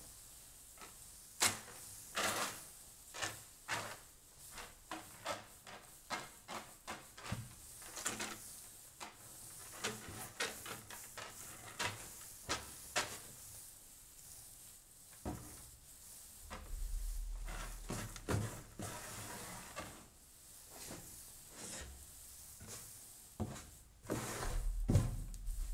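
Hands sweeping and spreading sprouted green malt across a wooden drying bed: a run of short rustling swishes and scrapes of the grain, roughly one or two a second. A low rumble comes and goes in the second half.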